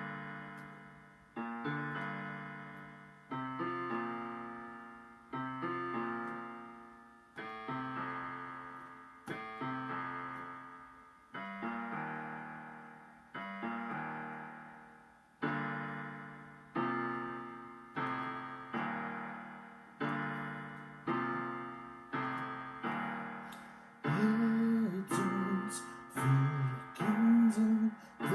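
Solo piano playing slow chords, one struck about every two seconds and left to ring and fade. A singing voice comes in over the piano near the end.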